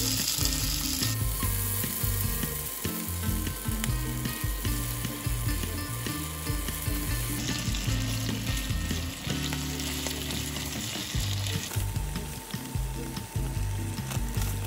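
Pork belly and kimchi sizzling in a nonstick frying pan, stirred and turned with a silicone spatula.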